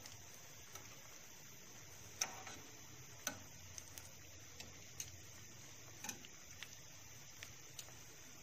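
Glutinous rice balls frying in a pan of oil, turned with metal tongs: a faint steady hiss with irregular sharp clicks and pops, the loudest about two seconds in.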